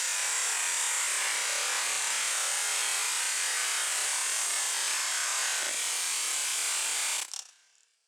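High-pressure washer jet spraying with a steady, hissing rush of water, stopping abruptly about seven seconds in.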